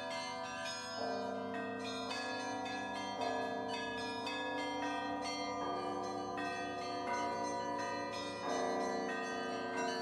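Church bells ringing in a continuous peal: many quick strokes over a ringing hum whose pitches shift every second or two.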